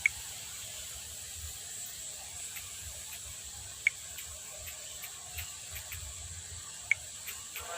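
Steady low hiss with faint ticks and three short, sharp clicks, near the start, about four seconds in and about seven seconds in: taps on a phone's on-screen keyboard while a name is typed.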